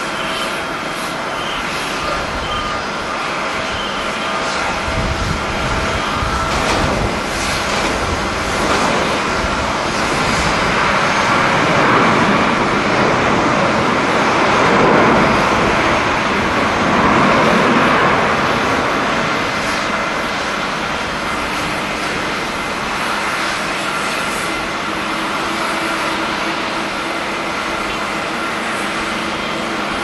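Jet engines of a Boeing 767 airliner during its landing rollout. The steady roar swells over several seconds to a peak around the middle, with a sweeping hiss, then slowly eases off.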